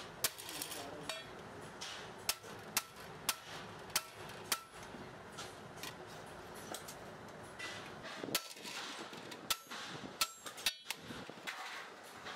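Hammer blows on metal: a run of sharp strikes about twice a second, then a few more scattered strikes, several leaving a short ring.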